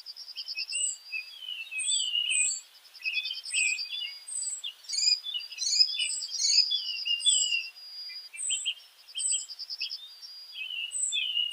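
Several small birds chirping and singing at once: a high short note repeating about once a second over fast rattling trills and varied whistled chirps.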